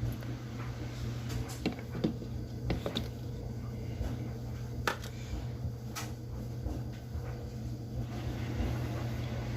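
Scattered light clicks and knocks of kitchen containers and utensils being handled while ingredients are added for a shake, over a steady low hum.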